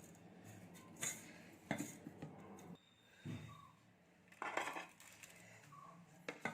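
A spoon scraping and clinking against a bowl as steamed wheat-flour puttu is mixed with grated coconut and sugar: several short clinks and scrapes, with a longer scrape about four and a half seconds in.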